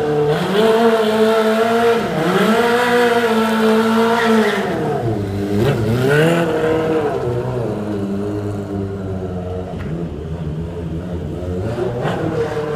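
Sport motorcycle engine revving as the bike is ridden in slow circles. The revs are held high for the first few seconds and drop about five seconds in. A quick blip of the throttle follows around six seconds, then the engine runs at lower, steadier revs before climbing again near the end.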